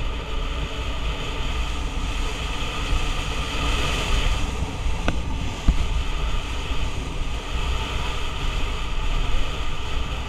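Wind buffeting the microphone of a helmet camera on a moving motorcycle, with the engine running underneath. There are two brief knocks about five and a half seconds in.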